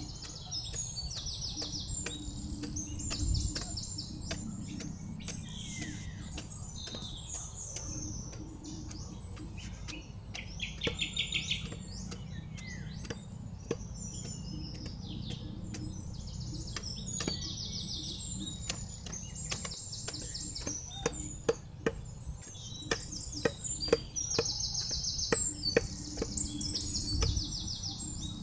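A machete blade knocks and scrapes as it pares a banana corm against a wooden log: sharp clicks and chops throughout, coming thicker and louder in the last third. Small birds chirp and sing repeatedly over it, with a steady low rumble underneath.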